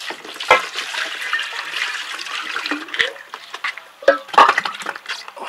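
Glass canning jars being washed by hand in a plastic basin of water: water sloshing and splashing, with a few sharp knocks of glass, about half a second in, at about three seconds and again near four and a half seconds.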